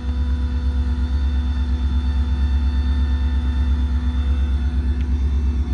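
Ford F-600's 7.3-litre V8 gas engine running steadily with the PTO engaged, driving the hydraulic pump for the service crane: a deep, quickly pulsing rumble with a steady whine over it.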